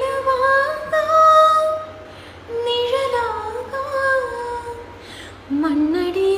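A woman singing solo with no accompaniment: phrases of held, sliding notes with short breaks between them.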